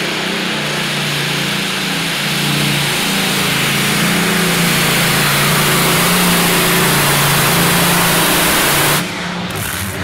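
Multi-engine modified pulling tractor running at full power during a pull, a loud steady engine sound that grows louder a few seconds in. It drops away abruptly near the end.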